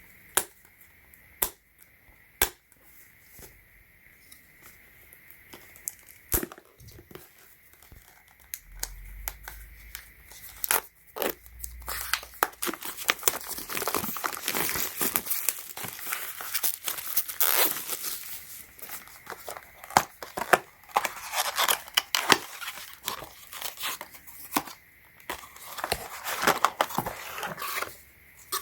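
Packaging being torn open and crumpled while a power bank is unboxed. There are a few sharp clicks and knocks at first, then continuous crinkly rustling and tearing from about twelve seconds in.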